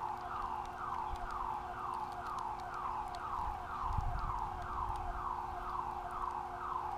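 Power plant alarm siren sounding continuously, a rapid warble of falling sweeps about three times a second over a steady lower tone.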